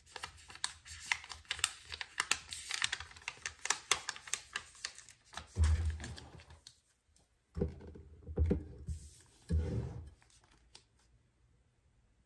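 Crackling and crinkling of a vinyl decal sheet and its transfer tape being handled and peeled, a quick run of small clicks for about five seconds. This is followed by a few dull thumps and rubs against the tabletop, then it goes quiet.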